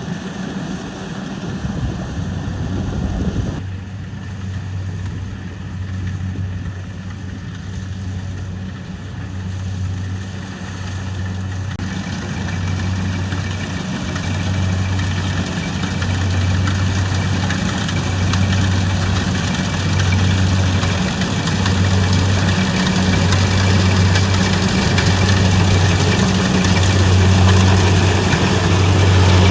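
Kubota rice combine harvester's diesel engine running steadily, its low hum swelling and dipping roughly every two seconds over a rush of machine noise that grows gradually louder.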